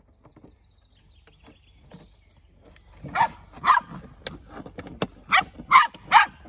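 Puppies barking during rough play: a quick run of about six short, high yaps starting about three seconds in, after faint scuffling and rustling.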